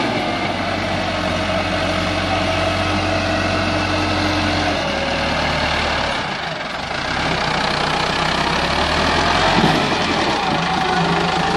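Massey Ferguson 385 tractor's four-cylinder diesel engine running under load as it pulls a trolley heaped with sand. The engine sound dips briefly about six seconds in, then picks up again.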